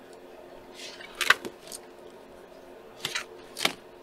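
Paper and packaging being handled: a few short, sharp rustles, the loudest about a second in and two more near the end.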